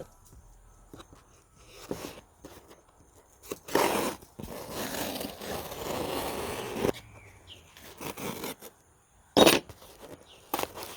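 Packaging being torn open and rustled as new suspension parts are unboxed, with a longer stretch of rough tearing and crinkling about four seconds in and sharp rips near the end.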